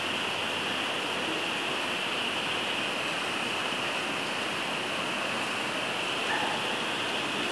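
Steady rushing hiss of heavy rain falling onto standing floodwater, with no break or change in level.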